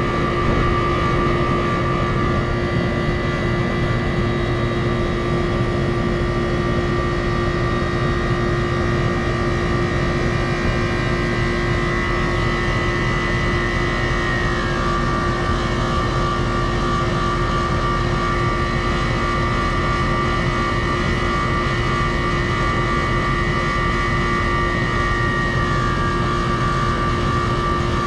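Running 4-ton R-410A air-conditioning condensing unit, its compressor and condenser fan giving a loud steady hum with several high held tones. The compressor's noise is what the technician calls bad, on a leaking unit short of refrigerant that he is charging.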